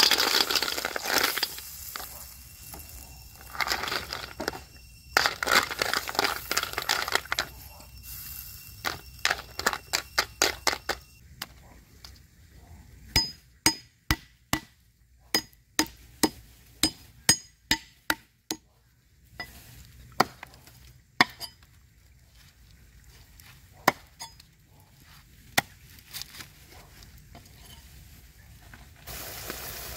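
Hands-on cooking preparation: rustling and crunching of ingredients being handled, then a run of sharp single clicks and clinks about a second apart, like utensils on cookware. A steady frying sizzle starts near the end.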